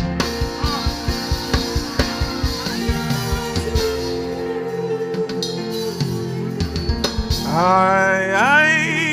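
Live worship band music: drum kit hits over sustained keyboard chords, with the drums dropping out about halfway through. Near the end a man sings a long, wavering note into a microphone.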